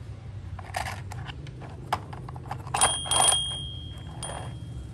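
A plastic toy car clicking and knocking as it is handled and rolled along a wooden plank. A little under three seconds in, a high steady ringing tone like an electric bell starts and keeps going.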